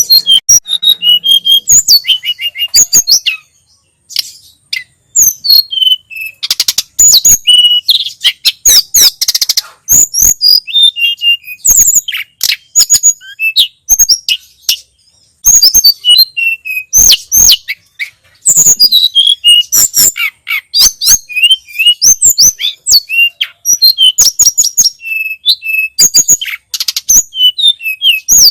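Tledekan gunung (sulingan gunung) singing: rapid phrases of sharp, high whistled notes and chirps, strung into fast runs with short pauses between phrases.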